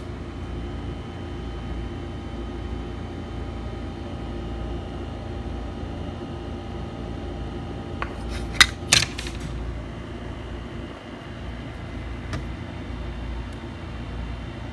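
Steady room hum and hiss, broken about eight seconds in by a quick run of three or four sharp clicks or clinks, with one lighter click a few seconds later.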